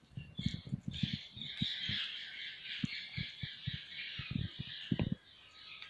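Wet squelching of hands squeezing the water out of boiled bathua (lamb's quarters) leaves: a string of short, soft squishes, the strongest near the end. Birds chatter and squawk in the background for most of the time.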